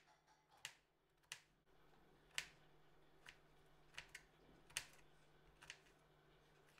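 Kitchen knife chopping banana stem into small pieces on a cutting board: about ten sharp taps of the blade meeting the board, unevenly spaced.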